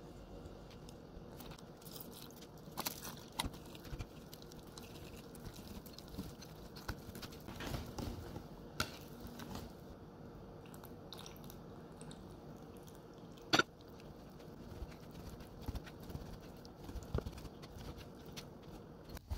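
Wire whisk stirring flour into a wet banana batter in a glass bowl: soft, irregular squelching and scraping, with scattered clicks of the metal wires against the glass and one sharper click about two-thirds of the way through.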